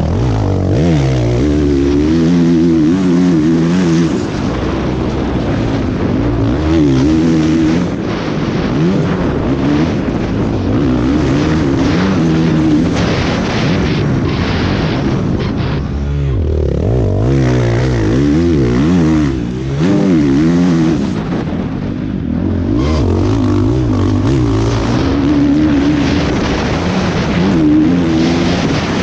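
Motocross bike engine revving hard through a lap, heard from the rider's helmet camera: the pitch climbs as it revs out and drops back again and again as the throttle closes and gears change.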